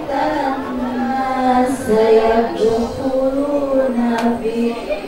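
A woman chanting Quran recitation into a microphone, in a melodic voice with long held notes that rise and fall.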